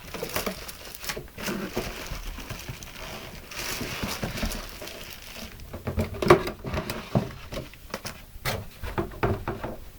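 Cardboard packaging being handled and pulled out of a box: irregular rustling and scraping with light knocks, the loudest knock a little after halfway.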